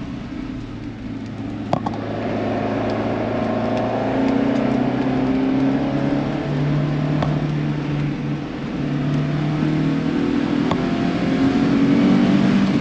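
Alfa Romeo Giulia GT1300 Junior's twin-cam four-cylinder engine accelerating hard, heard from inside the cabin, its pitch climbing slowly through the gears with a drop at a gear change about two-thirds of the way through. The engine is slow to gain revs, through a long-geared gearbox.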